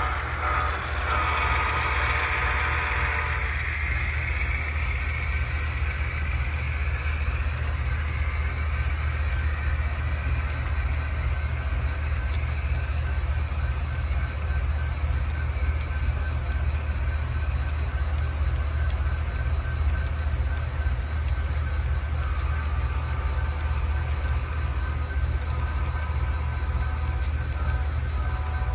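Model diesel locomotive's sound-decoder horn: a chord of several notes ends about three seconds in. A steady low diesel engine sound then keeps running as the freight cars roll by.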